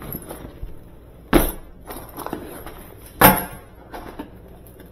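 Two sharp metallic clanks about two seconds apart, with a few lighter knocks between, as the refrigerator's grille is handled, over a steady low hum.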